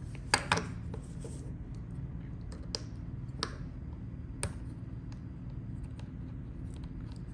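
Small hard fidget-toy parts being handled, giving scattered sharp clicks and clacks: two loud ones right at the start, then single ones about every second until about halfway, over a steady low hum.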